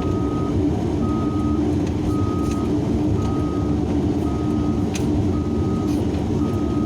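Heavy-equipment back-up alarm beeping about once a second, each beep a single tone about half a second long, over the steady drone of a large diesel excavator engine.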